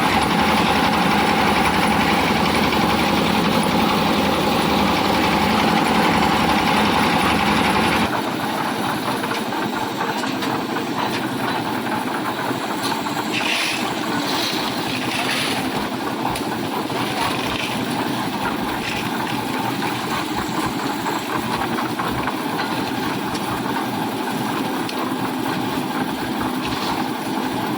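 Concrete mixer machine's engine running steadily under load. About eight seconds in, the sound changes abruptly to a thinner, quieter machine noise, with a few short higher-pitched noises a little later.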